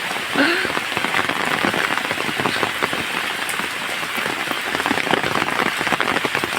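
Steady, fairly loud rain falling, with many separate drop hits on nearby surfaces.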